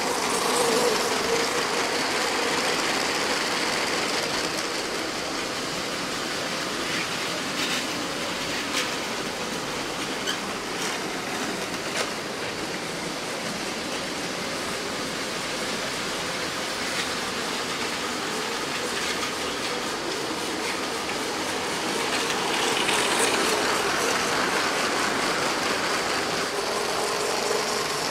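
LEGO train motors whining and plastic wheels running over plastic track as the trains pass close by, with a few sharp clicks at the track joints. The whine swells near the start and again about 23 seconds in.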